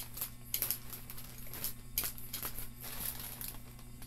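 A utility knife slitting open a plastic poly mailer while it is handled, giving irregular crinkles and small clicks of thin plastic. A steady low hum runs underneath.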